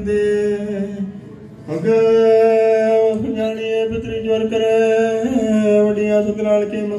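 Gurbani kirtan: a man singing a Sikh hymn in long, steady held notes, with a short drop in loudness about a second in.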